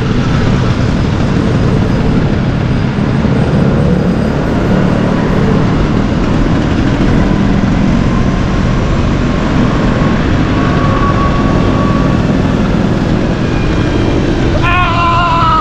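Vespa scooter engine running steadily. Near the end a short, high, several-pitched tone bends downward.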